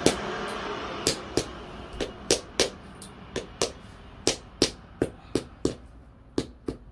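A hammer tapping bricks into the soil to level them: about fifteen sharp taps, often in pairs, a few a second. A faint hiss fades out over the first second.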